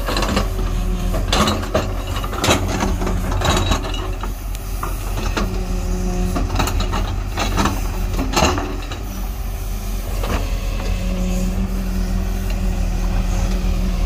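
JCB 140 tracked excavator's diesel engine running steadily under load as it digs, with a tone that comes and goes as the hydraulics work. The steel bucket scrapes and clanks through soil and stones in repeated sharp knocks, most of them in the first four seconds and again around seven to eight seconds in.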